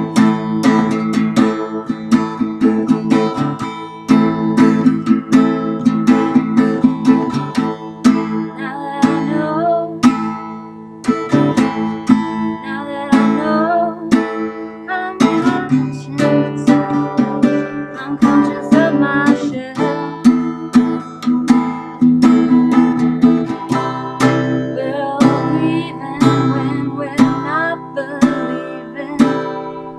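Acoustic guitar strummed in a steady rhythm of chords, dropping softer for short passages.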